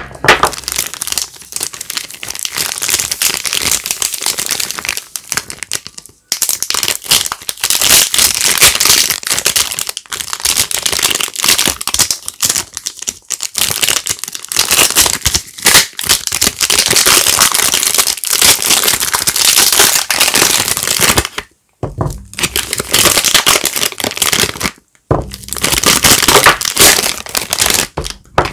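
Soap wrappers crinkling and tearing as bars of soap are unwrapped by hand, in long dense stretches broken by a few short pauses.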